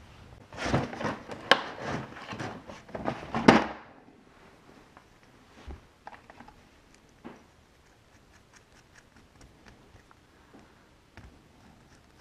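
Workshop handling noise: about three seconds of loud, irregular metal clattering and knocking at a drill press, stopping abruptly. Then scattered light clicks and scrapes as small bolts are handled and tried in a metal thread-checker gauge.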